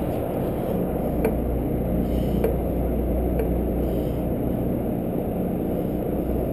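Sportfishing boat's engine running with a steady low hum, with a few faint sharp clicks in the first few seconds.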